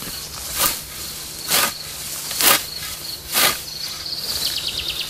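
Scythe strokes swishing through tall grass while mowing by hand, four sweeps about one a second. Insects chirp throughout, with a short rapid run of chirps near the end.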